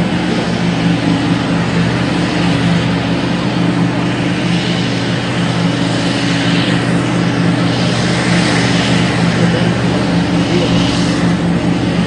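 Heavy mining diesel engines of a hydraulic shovel and haul truck running in a steady, low drone while the shovel loads the truck. From about four seconds in, swells of hiss come and go over the drone.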